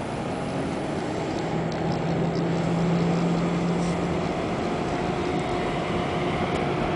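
Steady traffic and engine noise heard from inside a car moving slowly in freeway traffic, with a low engine hum that holds for a couple of seconds and a gradual rise in level.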